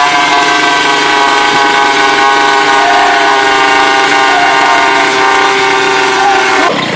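A loud, long horn-like blast of several tones sounding together, held steady, then cut off abruptly near the end.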